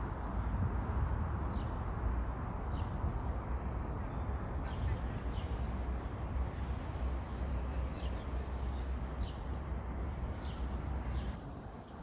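A bird giving short, high, falling chirps about once a second over a steady outdoor background with a low rumble.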